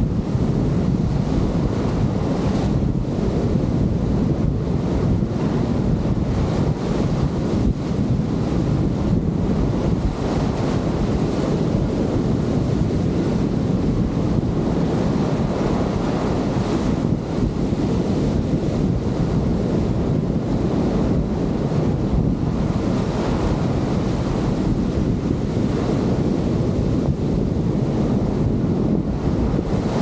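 Breaking surf and foaming whitewater washing around the camera in shallow water, with wind buffeting the microphone: a loud, steady rush with constant gusty flutter.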